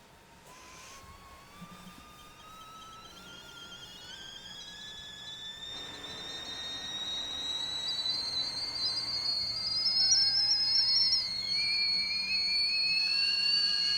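Stovetop whistling kettle coming to the boil: a whistle of several tones at once that climbs slowly in pitch and grows steadily louder, becoming shrill and loud near the end.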